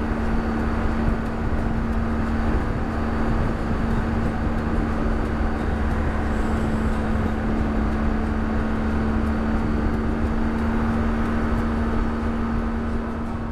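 BMW R1200GS Adventure's flat-twin engine running with a steady hum and low rumble.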